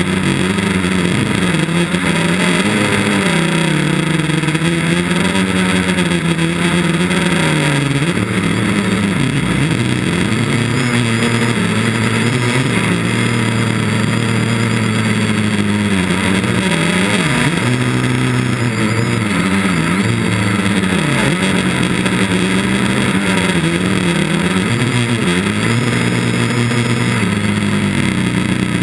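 Quadcopter's electric motors and propellers humming steadily, heard from a camera mounted on the craft, the pitch wavering up and down through the flight.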